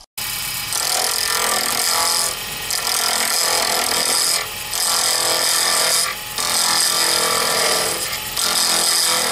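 A lathe turns a square resin pen blank with a circuit board cast inside while a turning tool cuts down its corners. The result is a loud, continuous, rough cutting noise as the tool strikes each corner and the brittle resin chips. The noise briefly drops out four times, about every two seconds, as the tool comes off the work.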